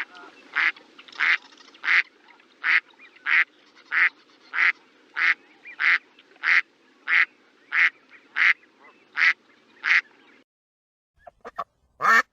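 Duck quacking in a steady series, about three quacks every two seconds, stopping abruptly about ten seconds in. A few short, sharp sounds follow near the end, the last the loudest.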